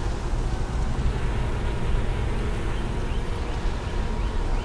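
Steady low rumble of wind on the microphone, with honeybees buzzing around an opened hive.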